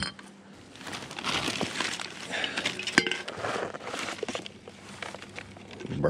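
Gathered litter, discarded drink cans and bottles, clinking and rattling together with crinkling rustle as trash is picked up and handled, with one sharp clink about halfway through.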